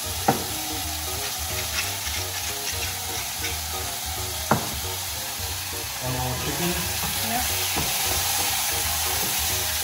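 Chicken breast pieces sizzling in a frying pan, with two sharp knocks, one just after the start and one about four and a half seconds in. From about six seconds in a wooden spatula stirs the chicken and the sizzle gets louder.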